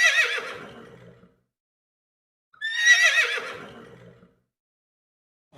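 Horse neighing twice: two matching whinnies about three seconds apart, each a wavering call that trails off over about a second and a half.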